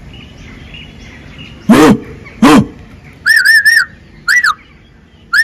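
Animal calls: two loud, harsh calls less than a second apart, followed by short high chirps, three in quick succession and then two single ones.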